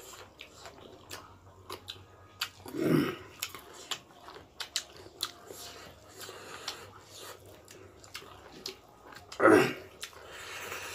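Close-up chewing and mouth sounds of people eating by hand: many small wet smacks and clicks. A brief voiced sound comes about three seconds in and again near the end.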